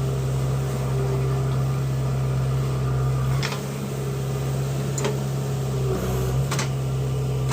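JCB 3DX backhoe loader's diesel engine running steadily, with three short metallic clanks in the second half, about a second and a half apart.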